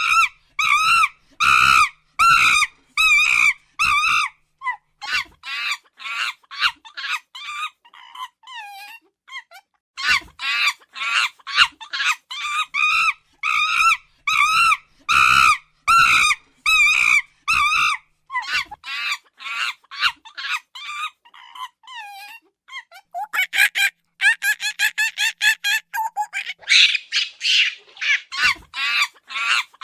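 Monkey giving a long series of shrill, high-pitched calls, each with a wavering pitch, repeated about twice a second, with short breaks about a third of the way through and again past two-thirds.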